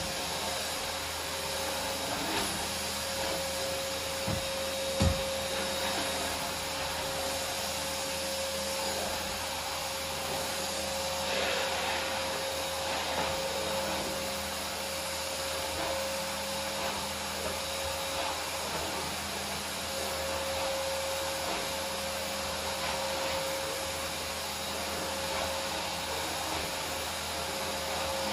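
Canister vacuum cleaner running steadily as its floor head is pushed over a wooden floor: a constant whooshing noise with a steady hum-like tone. There are two short knocks about four and five seconds in.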